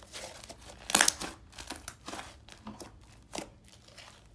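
Hands stretching and pressing a thick slime, giving irregular sticky crackles and pops, the loudest about a second in and another a little after three seconds.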